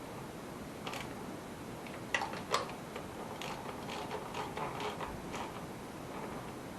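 Hand ratchet wrench clicking in short runs as engine mount bolts are tightened, with two sharper metal knocks a little over two seconds in.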